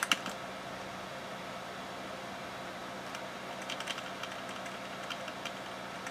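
Computer keyboard keys tapped in a short run of light clicks a few seconds in, with a couple more right at the start, paging through a file listing. A steady machine hum sits underneath.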